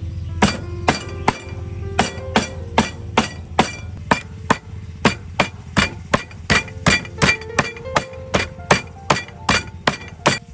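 Knife chopping on a cutting board: about twenty-five sharp knocks at an even pace of roughly two and a half a second, each with a short ringing tone. A low steady hum runs underneath.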